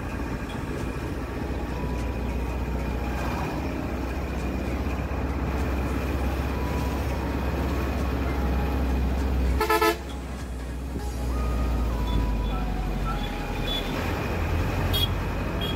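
Steady low rumble of a bus engine and road noise heard from inside the moving bus, with one short, loud vehicle horn blast about ten seconds in.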